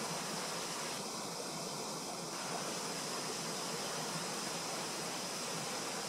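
Steady outdoor background noise: an even rushing hiss with no distinct events, like running water or wind.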